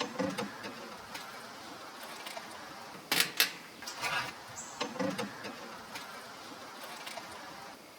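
Handling noises as a frozen pizza is worked at the opening of a folding metal camp oven: rustling and light clatter, with two sharp clacks about three seconds in. A steady hiss from the butane stove burner runs underneath.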